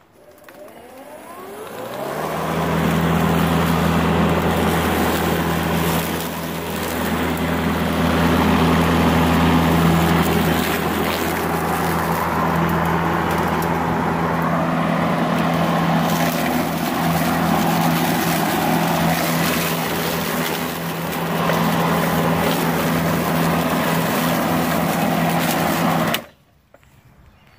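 Makita 18V X2 (36V) cordless lawn mower spinning up, its motor and blade whirring up to speed over about two seconds, then running steadily while mowing tall, wet grass and weeds, the loudness dipping slightly now and then. It shuts off suddenly near the end.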